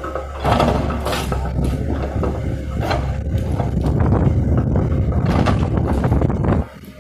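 Komatsu PC130F hydraulic excavator's diesel engine working under load, with crashing and scraping of building material being broken and pulled down. The noise drops away suddenly near the end.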